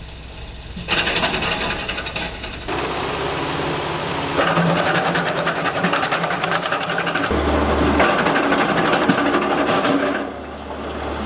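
Gasoline-powered wood chipper running with a fast mechanical rattle. The sound changes abruptly several times.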